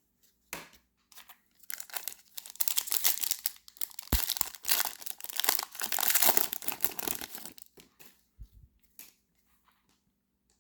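Wrapper of a trading card pack being torn open and crinkled: a dense run of crackling tearing from about two seconds in, dying away near the end with a few scattered clicks.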